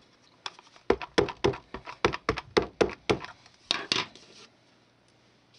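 A quick run of about fifteen light, sharp taps and clacks from a clear acrylic stamping block carrying a rubber wood-grain stamp, handled and pressed on card stock over a craft mat. The taps stop about four and a half seconds in.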